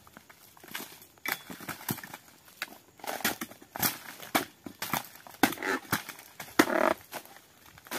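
Long-handled chisel (dodos) striking and cutting into oil palm frond bases: irregular sharp chops and knocks, with a couple of longer crackling rustles of cut fronds past the middle.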